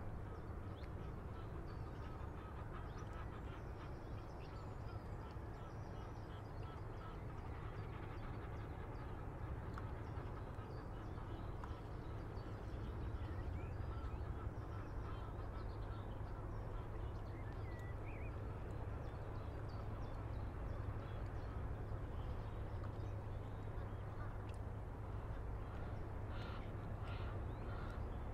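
River-bank ambience at a breakwater: water lapping and a light breeze over a steady low rumble, with water birds calling, a few short chirps midway and a cluster of calls near the end.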